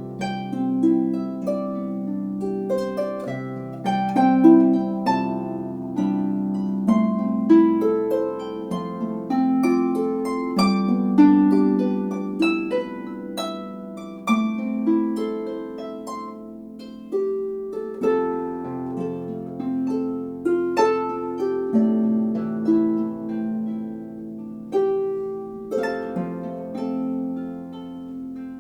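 A 34-string Music Makers Regency lever harp played solo: a melody of plucked notes over sustained, ringing bass notes. The kit-built harp's cherry and birch-plywood soundbox gives the bass a deep, full sound.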